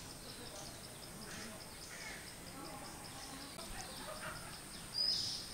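Outdoor woodland ambience: an insect keeps up a steady high pulsing at about four pulses a second. Near the end a bird gives a short rising call, the loudest sound here.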